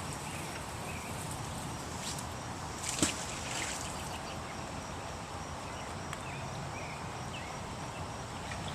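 Steady outdoor riverside ambience with a few short chirps. One sharp click or knock about three seconds in stands out.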